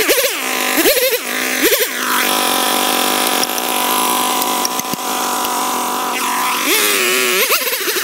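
Chainsaw revving up and down in short bursts, then idling steadily, then revving again near the end. A few sharp knocks midway come from felling wedges being hammered into the back cut.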